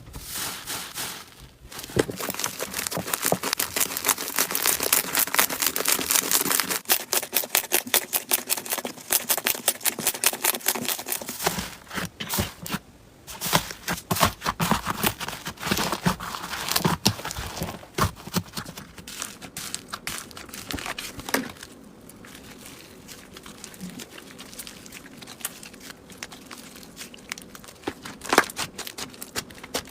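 Slime being squeezed and pressed by hand, with rapid crackling and popping. The crackling is densest in the first half, then gives way to quieter, scattered pops.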